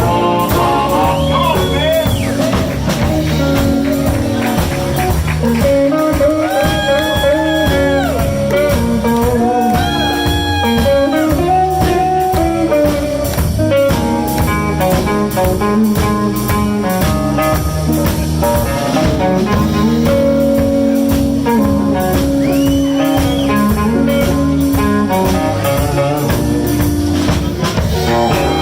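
Live blues band playing an instrumental passage: a drum kit keeps a steady beat under bass and accompaniment while a lead line plays notes that bend up and down.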